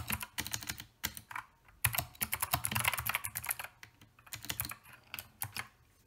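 Typing on a Tezarre TK61 Pro 60% mechanical keyboard with clicky Gateron optical blue switches: two quick runs of key clicks, then a few scattered keystrokes that stop about five and a half seconds in.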